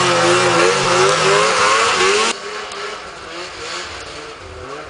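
Arctic Cat F7 snowmobile's two-stroke engine revving up and down as it passes close by. About halfway through the sound drops abruptly to a fainter snowmobile engine farther off.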